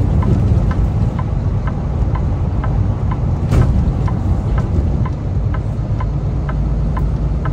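Steady low rumble of a semi truck's engine and tyres at highway speed, heard inside the cab, with light ticks about three times a second and one brief louder noise about three and a half seconds in.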